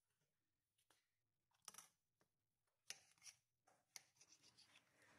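Faint sounds of a kitchen knife slicing raw long eggplant lengthwise: a handful of short, crisp cuts and scrapes, then a quick run of small ticks near the end.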